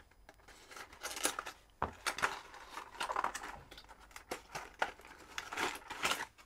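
Plastic lure packaging being cut and pried open with a knife: irregular crinkling of plastic with scattered clicks and scrapes.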